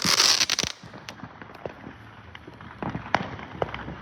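Fireworks going off: a loud, dense crackling hiss that cuts off less than a second in, then scattered fainter pops and crackles as the firework dies away.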